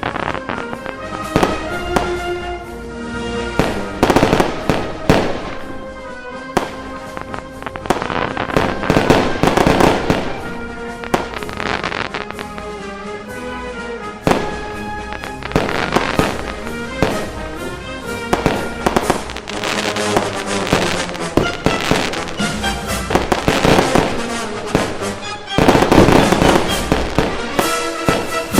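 Fireworks going off in dense volleys of crackles and bangs, with louder clusters several times through, over background music.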